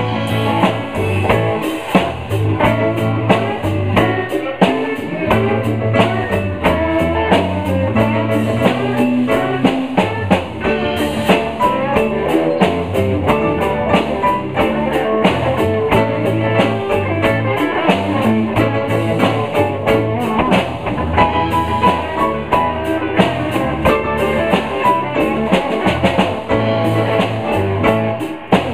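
Live blues band playing an instrumental passage, with electric guitar and drum kit to the fore over a steady beat.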